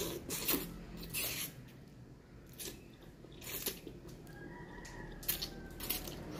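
A person slurping noodles off chopsticks in several short, noisy slurps.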